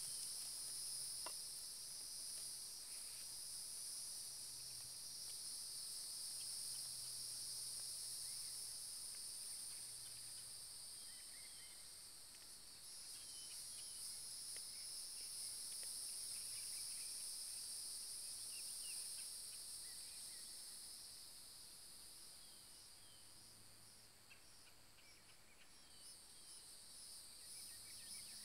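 Steady high-pitched insect chorus, two continuous buzzing bands, with a few short bird chirps scattered through it.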